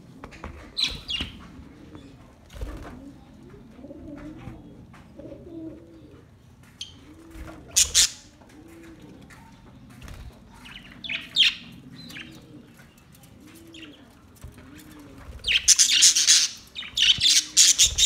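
A flock of budgerigars chirping and chattering in short high bursts, with a loud flurry of chirps near the end and wings flapping as birds fly about. Underneath, a low cooing call repeats about once a second.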